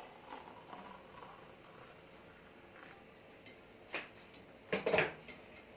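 Hot water being poured quietly into a ceramic mug for instant coffee, then a light clink about four seconds in and a louder cluster of clinks about a second later, as the kettle or spoon knocks against the crockery.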